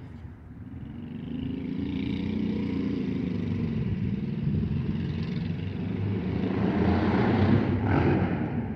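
A motor vehicle driving past close by: its engine and road noise swell for several seconds, peak near the end, then begin to fade.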